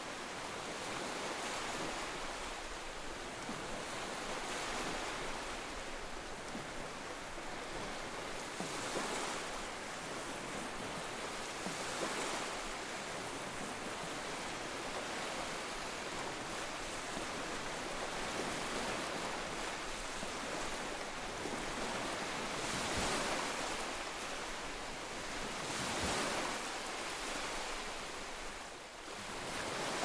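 Ocean waves breaking on rocks: a steady wash of surf with louder surges every few seconds as bigger waves break.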